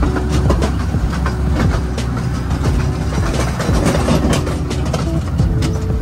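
A vehicle running: a steady low rumble and drone, with scattered rattling clicks.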